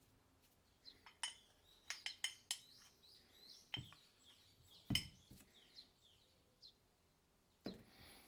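Metal parts and tools clinking and knocking in a quick run of light clicks, then three heavier knocks spaced a second or more apart, with faint bird chirps in the background.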